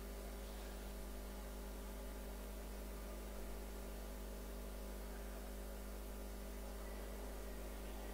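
Steady electrical mains hum with a faint even hiss.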